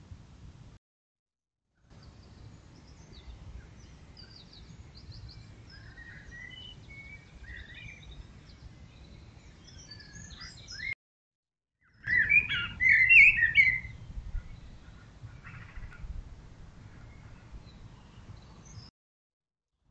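Garden birds singing and chirping in the dawn chorus: many short high chirps, then a loud burst of warbled calls about twelve seconds in, over a low background hiss. The sound drops out completely twice, for about a second each time.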